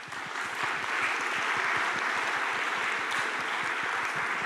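Audience applauding, a dense, steady clapping that swells over the first second.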